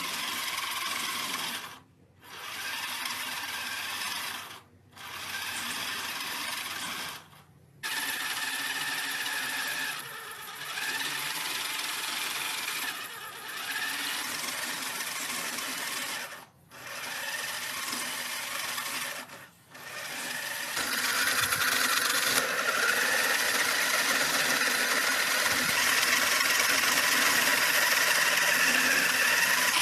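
A small electric motor or power tool running in a string of short runs broken by brief silences, then running steadily and a little louder with a steady whine from about twenty seconds in.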